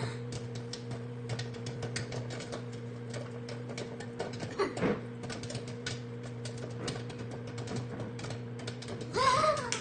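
Microwave oven humming steadily while popcorn kernels pop inside it: sharp, irregular pops, several a second. A loud, short voice sound comes near the end.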